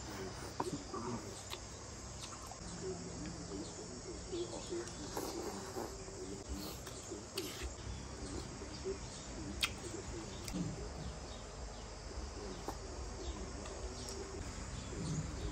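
Eating sounds of a man slurping and chewing instant noodles, with scattered sharp clicks of utensils against the bowl. Birds and insects chirp faintly in the background.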